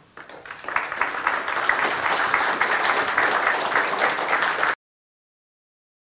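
Audience applauding at the end of a talk: many hands clapping, swelling within the first second and then holding steady, until the sound cuts off abruptly to dead silence near the end.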